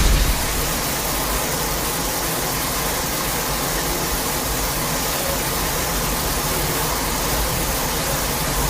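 A steady, loud rushing hiss with a deep rumble underneath: a sound effect that holds level without any change in pitch.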